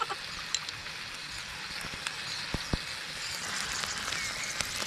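Spiny snails grilling in their shells with scallion oil on them, sizzling steadily with small crackles. Two light taps come about two and a half seconds in.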